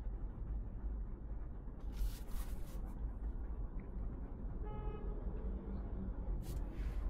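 A 2024 MG3 Full Hybrid+ on the move: steady low driving rumble, with brief hisses about two seconds in and again near the end. A short single horn toot sounds just before the five-second mark.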